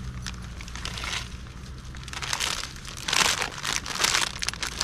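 Plastic instant-ramen packet crinkling as it is handled, in irregular rustling bursts that grow loudest over the second half.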